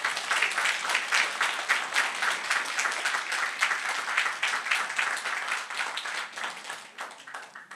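Audience applauding: many hands clapping together, fading out near the end.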